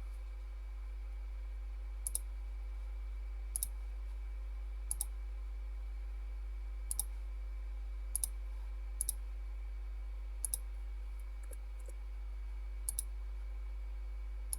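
Computer mouse clicking: about nine short clicks, most of them paired press-and-release or double clicks, spaced a second or two apart, over a steady low electrical hum.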